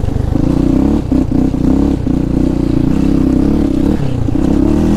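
Yamaha Raptor 700 ATV's single-cylinder four-stroke engine running under throttle through aftermarket pipes while riding. The engine note drops briefly a few times, about a second in, at two seconds and near four seconds.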